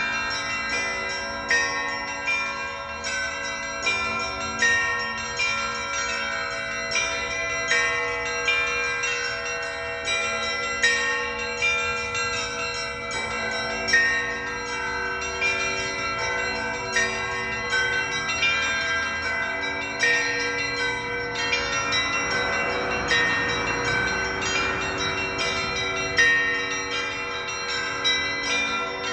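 Church bells ringing a morning peal: several bells of different pitch struck in a quick, repeating pattern, with louder strokes every few seconds.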